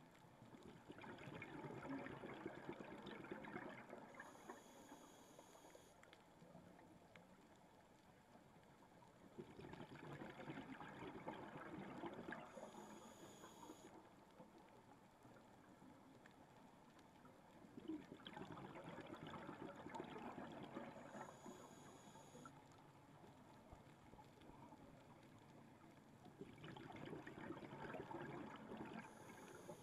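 Scuba diver breathing through a regulator, heard faintly through the camera's underwater housing: a three-second rush of exhaled bubbles followed by a short high hiss of inhalation, repeating about every eight and a half seconds, four breaths in all.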